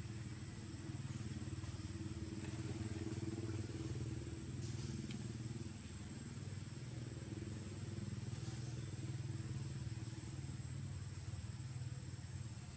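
A small engine running steadily, its level swelling and easing a little, with a thin steady high tone above it.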